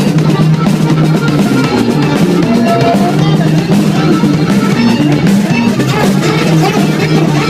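Music with guitar and drum kit playing a steady beat.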